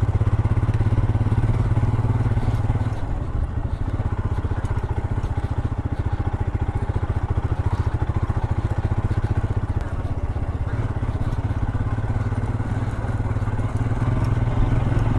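Royal Enfield Himalayan BS6's single-cylinder engine running at low, steady revs, a continuous thumping exhaust beat.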